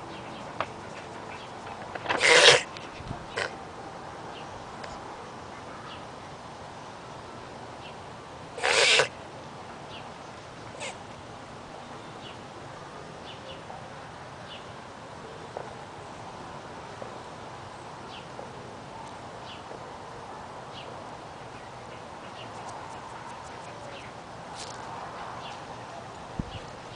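A pet reverse sneezing: two short, loud noisy bursts about six seconds apart, with a few faint clicks between them.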